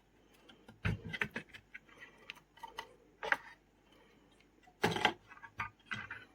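Irregular clicks and light knocks of small laptop parts being handled and fitted, as the DC-jack daughter board goes back onto a Dell Inspiron N5010 motherboard; the loudest cluster of knocks comes about five seconds in.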